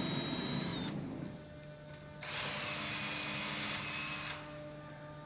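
Power drill pre-drilling screw holes into the gazebo's wooden rafters and roof posts, running in two spells with a steady whine: the first ends about a second in, the second runs from about two to four seconds in.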